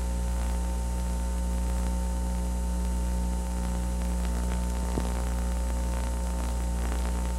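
Steady electrical mains hum under an even hiss, with no programme sound: the noise floor of an old VHS tape transfer. A faint click about five seconds in.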